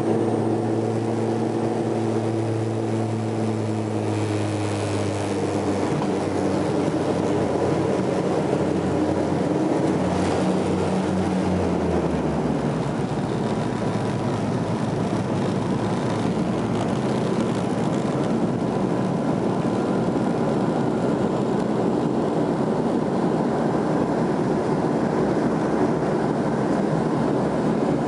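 Turboprop engines and propeller heard from inside the passenger cabin: a steady drone of stacked tones that, about twelve seconds in, gives way to a denser, even rush as the aircraft speeds up along the runway.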